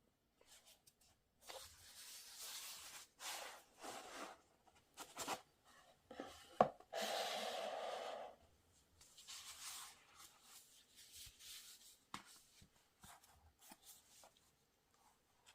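Packaging of a Blu-ray limited edition set being handled: a run of rustling and sliding scrapes of card and paper rubbing together. A sharp click comes near the middle, followed by the longest and loudest scrape.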